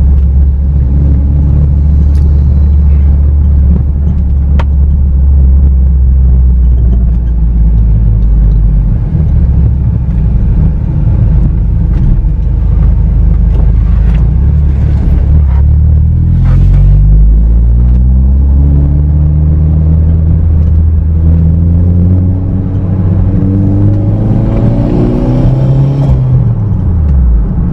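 Honda City's engine and exhaust heard from inside the cabin while driving: a steady low drone at first, then the pitch climbs several times as the car accelerates through the gears, falling away sharply near the end as the throttle is lifted.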